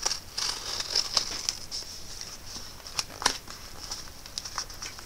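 Small scissors cutting open a cardboard shipping box: crinkling and tearing of tape and cardboard with a run of short sharp snips, the loudest two about three seconds in.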